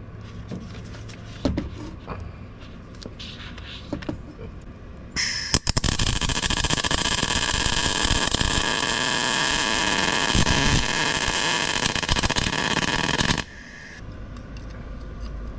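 Welder arc running for about eight seconds as a nut is welded onto a broken-off exhaust manifold bolt on a small-block Chevy 350, to back the bolt out. It starts abruptly about five seconds in and cuts off suddenly, after a few light taps and clicks.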